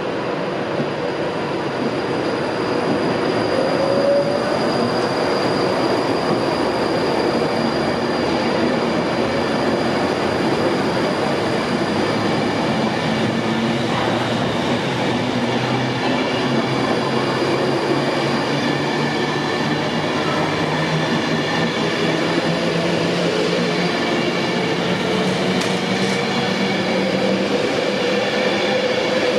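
Passenger train running along the track: a steady rumble with several high, steady whining tones over it.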